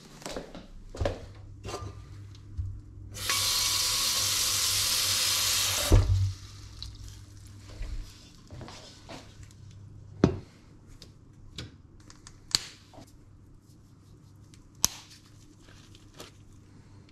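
Kitchen tap running into a stainless steel pot for about three seconds, filling it with water, then stopping with a knock. Scattered clinks and knocks follow as the pot is handled.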